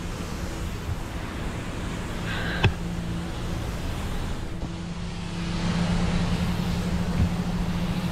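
Steady low rumble of wind and road noise from a camera riding along on a moving bicycle over pavement, getting a little louder in the second half. A single sharp click a little over two and a half seconds in.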